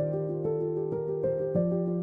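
Soft new-age background music: gentle plucked notes over a held low tone.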